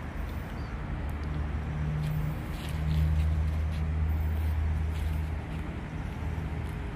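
Low engine hum of a motor vehicle that swells about two seconds in and eases off again near the end, over a steady outdoor background noise.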